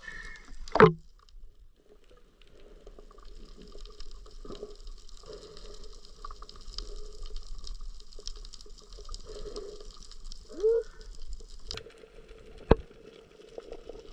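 Water pouring in a steady stream, stopping suddenly near the end, with a sharp knock about a second in and another shortly before the end.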